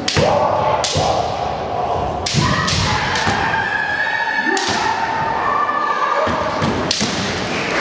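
Kendo bouts: sharp cracks of bamboo shinai strikes and stamping footwork on the wooden floor, about seven in all, ringing in a large hall, with long pitched kiai shouts, one held for about two seconds in the middle.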